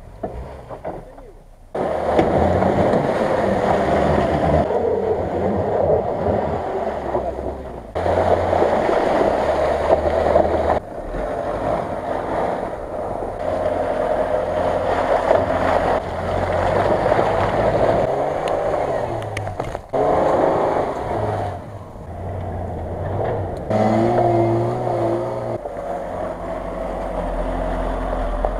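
Off-road 4x4 engines revving under load as the vehicles push through deep mud and snow, the pitch rising and falling with the throttle. The sound changes abruptly several times between clips.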